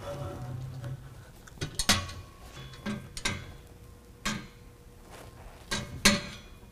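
Stainless steel exhaust pipe being fitted by hand into a slip-fit joint at the muffler: a string of sharp metal-on-metal clinks and knocks about half a second to a second apart, each ringing briefly.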